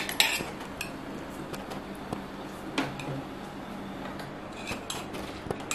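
Metal spoon clinking and scraping against a steel pot of soaked basmati rice, a handful of short, scattered clinks over a steady low background.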